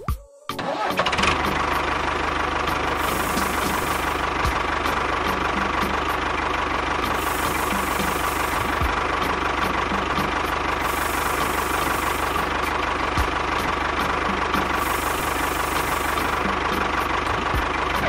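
Tractor engine running steadily, with an even low knock and a faint pattern that repeats about every four seconds.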